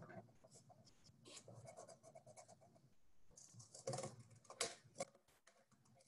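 Faint snips and rustling of scissors cutting through cardboard, with a few sharper clicks about four and four and a half seconds in.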